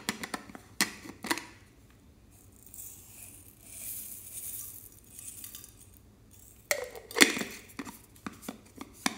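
Plastic container handled with sharp clicks and knocks as its lid comes off, then a soft high hiss of small tube beads pouring out onto slime for a few seconds, then more clicks and knocks as the container is handled and closed again.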